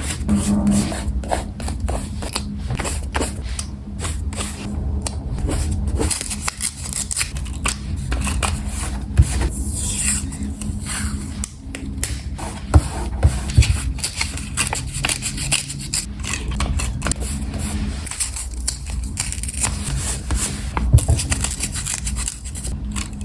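Scissors snipping and paper rustling and scraping, the sounds of washi tape, stickers and memo paper being cut and pressed down in a journal. Many short snips and crinkles follow one another over a steady low hum.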